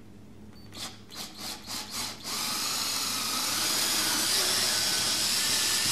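Cordless drill with a 1/4-inch bit boring a vent hole through a thin plastic purple martin gourd: a few short bursts as the bit starts into the plastic, then the drill runs steadily for about four seconds as it cuts through.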